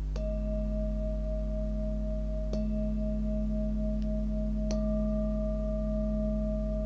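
Himalayan singing bowls struck with a mallet three times, about two seconds apart; each strike leaves a steady ringing tone that lasts on, so the tones of the bowls overlap.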